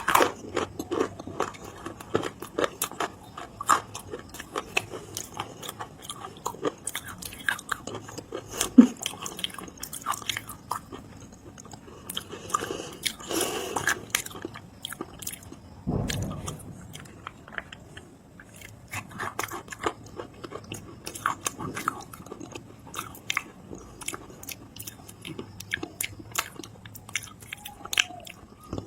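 Close-up chewing and biting of dry clay, a steady run of sharp crunches and clicks, with a longer grinding crunch a little before the middle.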